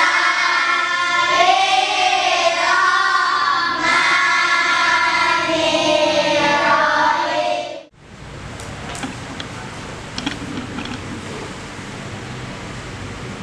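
A group of children singing together, which cuts off abruptly about eight seconds in. A quieter room hiss follows, with a few faint taps of chalk on a blackboard.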